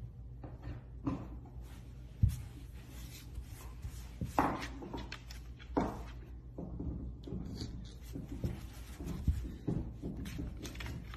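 Soft rubbing and light knocks over a low steady hum, with one sharper thump about two seconds in.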